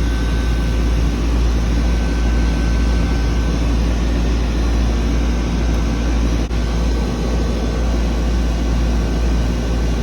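Comfort Cool central air conditioner's outdoor condenser unit running steadily: a deep compressor hum under the steady rush of the condenser fan, the unit started again after its blown disconnect fuse was replaced.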